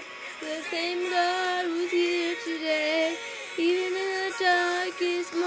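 A woman singing a worship song: long held, wordless notes that glide and step between pitches.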